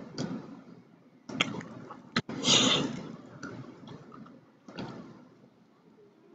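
Plastic spoon clicking and scraping in a small food cup while eating: a few sharp clicks, then a louder rustling burst about two and a half seconds in, and a softer one near the end.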